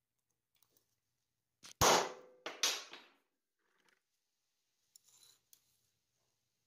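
A hammer striking a center punch twice on a steel plate, a little under a second apart, each blow sharp with a short metallic ring, marking the spot for a quarter-inch hinge-pin hole. A few faint clicks follow as the punch and piece are moved.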